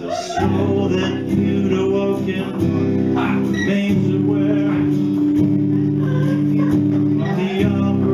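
Acoustic guitar chords with a man singing over them, live at the microphone.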